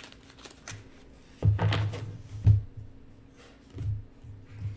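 Playing-card-sized deck handled on a tabletop: a few light shuffling clicks, then dull thumps about a second and a half in and again around two and a half, four and four and a half seconds as the deck is knocked and set down on the table.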